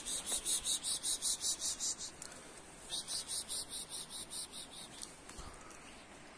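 An insect chirping outdoors: a high-pitched buzzing trill broken into rapid, even pulses. It comes in two runs of about two seconds each, with a pause of about a second between them.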